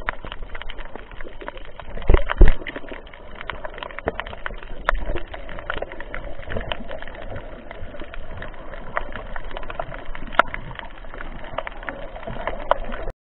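Underwater sound picked up by a camera submerged in shallow sea water: a steady crackle of many small clicks over a low rumble of moving water, with two louder knocks about two seconds in.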